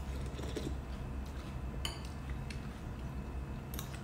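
Quiet soup-eating sounds: sipping tom yum from metal spoons over ceramic bowls, with two short sharp sounds, one about two seconds in and one near the end, over a steady low hum.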